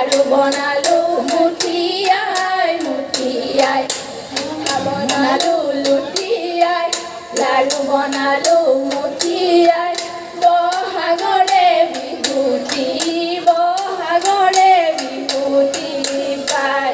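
Women singing a Jeng Bihu song into microphones, with steady rhythmic hand-clapping at about three claps a second.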